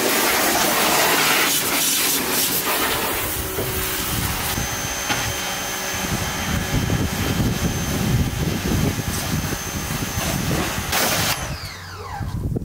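Pressure washer spraying water onto a car's bare body: a steady loud hiss of spray over the pump's running hum. The spray cuts off near the end.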